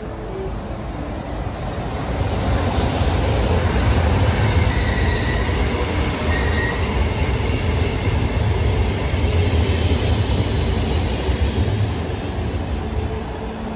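A red-and-white Lastochka electric multiple-unit train running into the station alongside the platform. Its rumble swells about two seconds in, holds, and eases off near the end, with two brief high squeals from the wheels about midway.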